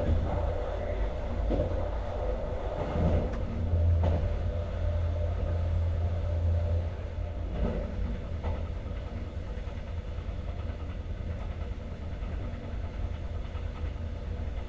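Alex regional passenger train running along the line: a steady low rumble of the train and its wheels on the rails, with a few faint knocks. It grows a little quieter about halfway through.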